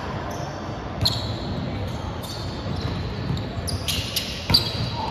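Volleyball rally on a hardwood gym court: the ball is struck sharply about a second in and again, loudest, near the end, with short squeaks of sneakers on the floor in between, all echoing in the large hall.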